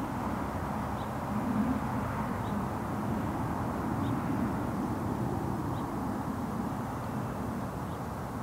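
Steady low rumble of distant traffic. Faint short high peeps come every second or two.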